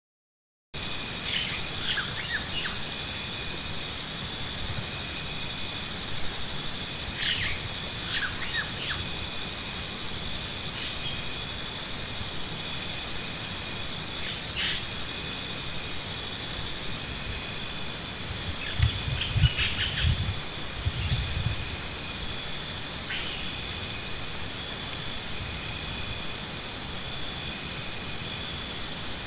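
Insects calling steadily: a high, fast-pulsing trill that comes in stretches of several seconds over a constant high drone, with a few short chirps and some soft low thumps about two-thirds of the way through.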